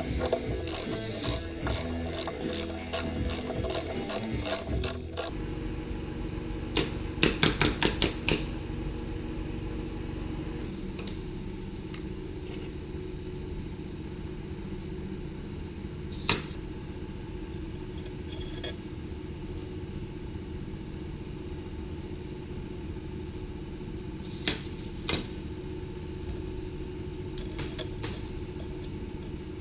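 Background music that stops about five seconds in, then a Ducati Monster's air-cooled two-valve L-twin idling steadily with the rattle of its dry slipper clutch. A quick run of five sharp clicks comes shortly after the music stops.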